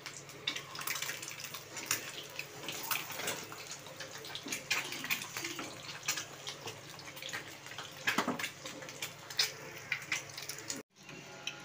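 Boiled eggs deep-frying in hot oil in a steel kadhai: a steady sizzle with frequent small crackling pops.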